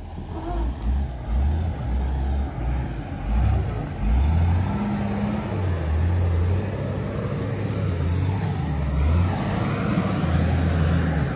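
Wheel loader's diesel engine running, a low rumble that rises and falls unevenly.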